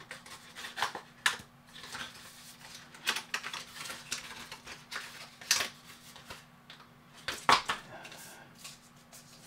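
Cardboard and paper watch packaging being handled: irregular rustles, taps and clicks of the box, sleeve and inserts, with the sharpest knocks about five and a half and seven and a half seconds in, over a faint steady hum.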